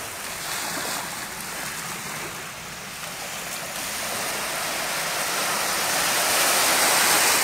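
Small ocean waves breaking and washing over the sand at the water's edge, a steady rushing hiss that swells louder in the last few seconds as a wave breaks close by.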